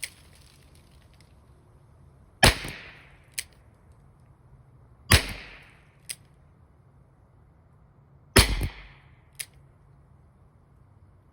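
Smith & Wesson K-22 .22 LR revolver fired three times, slow and evenly, about three seconds apart, each shot a sharp crack with a short tail. About a second after each shot comes a fainter, shorter crack.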